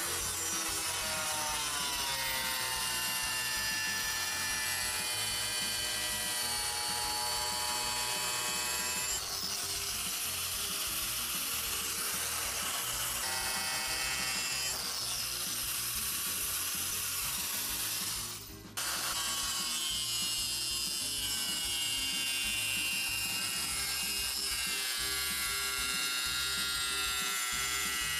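Angle grinder with a diamond profiling wheel grinding the edge of a porcelain stoneware tile dry: a steady high motor whine that sags and recovers in pitch as the wheel bites, with a gritty grinding rasp. Short breaks and jumps in the sound, the clearest a brief dip about two-thirds of the way through, come from cuts between takes.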